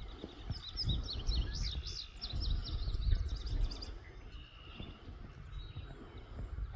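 A songbird sings a rapid run of high chirping notes for about three seconds, then stops. A low, uneven rumble runs underneath.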